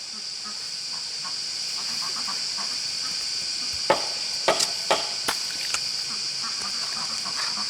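A steady, high-pitched insect chorus, with about half a dozen sharp knocks or clicks close together near the middle.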